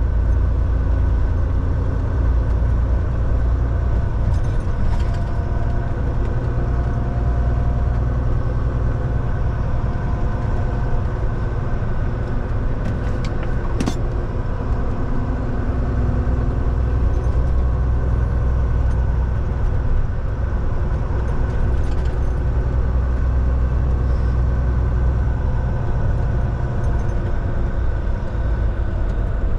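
Volvo semi truck on the move, heard from the cab: a steady low engine and road rumble, with a sharp click about fourteen seconds in.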